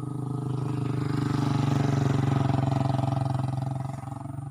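A motorcycle engine running. It swells louder to a peak about two seconds in, then falls back.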